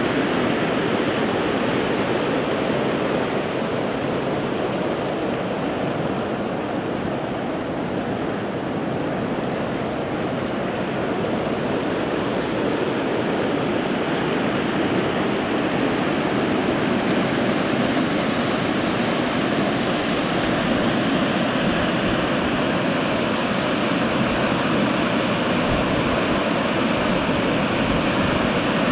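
Steady rushing of a river in flood, its swollen, muddy water running fast.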